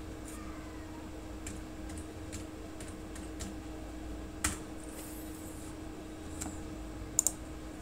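Computer keyboard keys tapped one at a time, spaced irregularly. A sharper, louder click comes about halfway through and a quick pair of clicks near the end, over a steady low hum.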